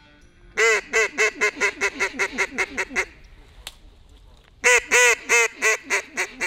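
A duck call blown as a mallard hen's greeting call: a long run of quacks, loud at first and tapering off, then a second shorter run near the end.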